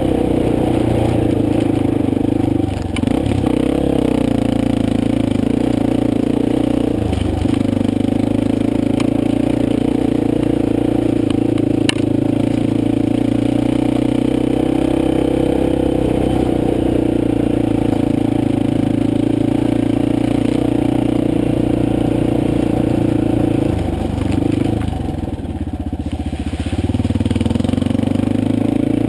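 Motorcycle engine running steadily as it is ridden. Its note dips briefly a few seconds in and again around seven seconds, and eases off for a couple of seconds near the end before picking up again.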